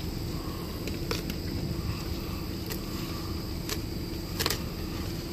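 A llama tearing and chewing lettuce leaves from a bucket, the leaves crackling in a few short sharp snaps, over the steady hum of an idling car.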